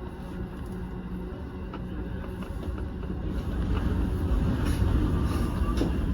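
Running noise of a JR Keiyo Line electric train heard inside the front car: a steady rumble of wheels on rail that grows louder from about halfway, with a few faint clicks.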